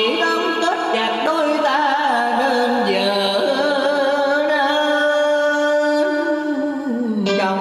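Vietnamese tân cổ song: one voice sings a long ornamented phrase over instrumental accompaniment, holding a note with vibrato in the middle and sliding down near the end.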